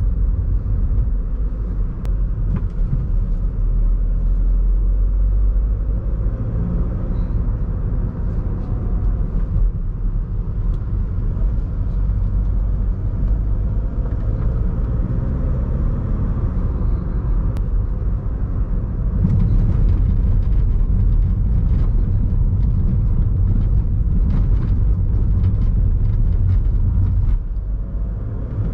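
Audi A1 1.6 TDI diesel car being driven, a steady low engine and road rumble. About two-thirds of the way through the rumble grows louder, with a run of knocks as the car goes over a bumpy road.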